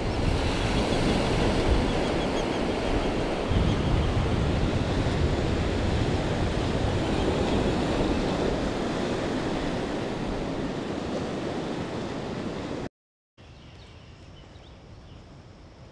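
Ocean surf washing onto a beach, a steady rush with a heavy low rumble. It cuts off abruptly near the end, giving way to a much quieter outdoor background.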